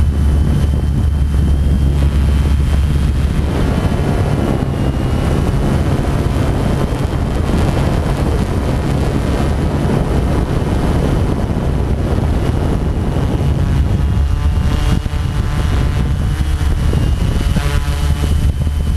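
A multicopter drone's motors and propellers humming steadily, heard through the onboard camera's microphone, with wind rushing over the microphone through much of the middle.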